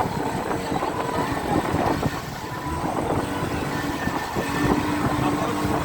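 Boat engine running steadily on board a dhow, with wind on the microphone.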